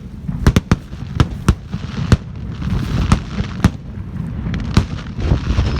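Fireworks going off: a rapid, irregular string of sharp bangs and crackles over a steady low rumble.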